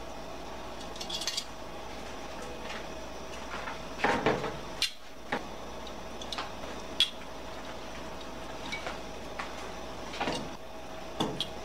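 Metal kitchen tongs clinking and tapping against a bowl and a stainless skillet as pieces of fried chicken are moved into the pan of rice and broth. There are a few scattered, irregular clicks, the loudest about four seconds in, over a steady background hum.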